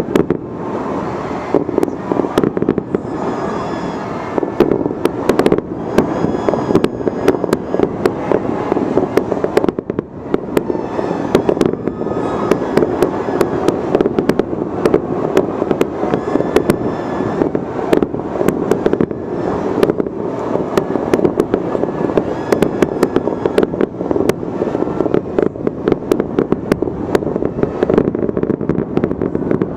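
Rooftop fireworks display going off nonstop: a dense run of sharp bangs and crackling pops over a steady rumbling wash of overlapping explosions.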